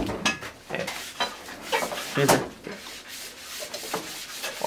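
Irregular rubbing and scraping strokes with a few light clicks, from hand work on small metal parts at a workbench; the strongest stroke comes about two seconds in.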